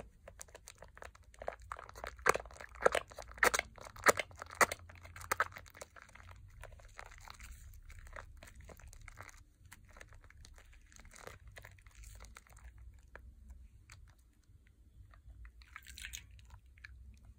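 Hands squeezing and kneading a thick mass of Pears soap lather over a bowl of water, making wet crackling. The crackling is loudest and densest a couple of seconds in, then softer, with a short hiss near the end.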